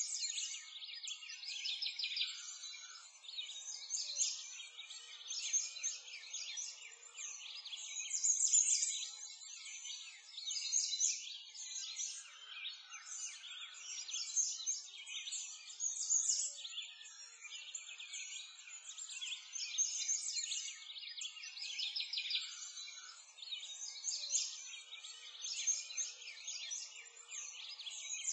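Dense chorus of small birds chirping and twittering, a busy high-pitched wash of overlapping calls with no low sounds beneath it, swelling and easing every few seconds.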